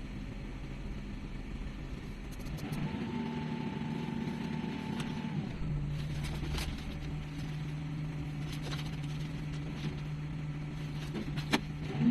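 Excavator diesel engine running, its hum stepping up in pitch about three seconds in and again a few seconds later as the machine works, with a few scattered clicks and knocks.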